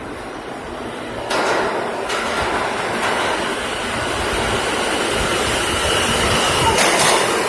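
R160 subway train pulling into an underground station, its rumble and rail noise swelling as it approaches, with a steady high whine over it. The noise jumps up about a second in, keeps growing, and ends with a clatter as the train reaches the platform.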